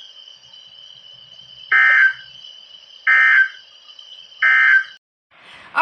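Weather radio broadcast sending three short buzzy digital data bursts about a second and a half apart: the Emergency Alert System (SAME) end-of-message code that closes a National Weather Service warning. A faint steady high whine runs underneath and cuts off near the end.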